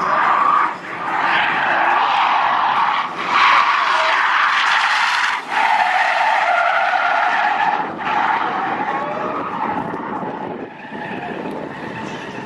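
Car tyres squealing in long, wavering screeches as a sedan drifts sideways at speed, broken by a few sudden drop-outs. The squeal dies away about eight seconds in.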